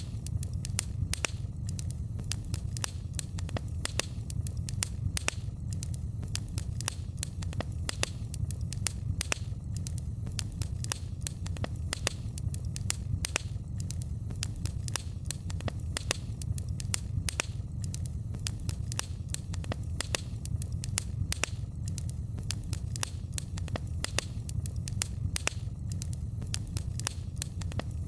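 Wood fire crackling: frequent sharp pops and snaps, several a second, over a steady low rumble.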